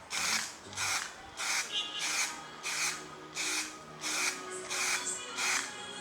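Aerosol can of black spray paint sprayed in short, evenly spaced hissing bursts, about three every two seconds, as paint goes onto the wiper arms.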